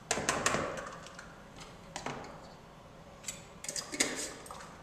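Plastic measuring cup tapping and clicking against a plastic mixing bowl as a cup of dry cornmeal is emptied into it, with a short soft pouring hiss after the first taps. A few more light clicks and taps of the cup and kitchen items follow about two and three to four seconds in.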